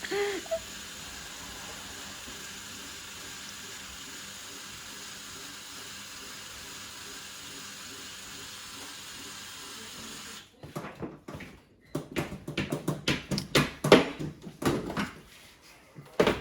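Water running steadily for about ten seconds, then cutting off suddenly, followed by irregular knocks and clatter.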